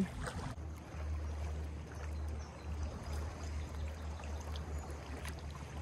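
Small waves lapping and trickling against a rocky shoreline at the water's edge, with a steady low rumble of wind on the microphone.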